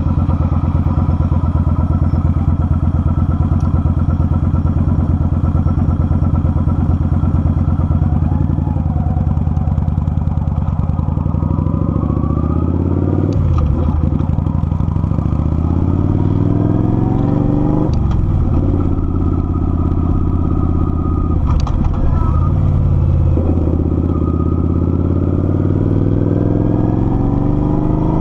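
Kawasaki Vulcan 900's V-twin engine heard from the bike while riding: steady cruising at first, then accelerating through the gears in the second half, the revs climbing and dropping sharply at each of several upshifts.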